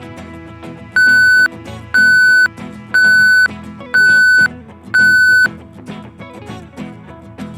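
Timer alarm signalling that the minute is up: five loud, identical electronic beeps, each about half a second long, one per second, over steady background music.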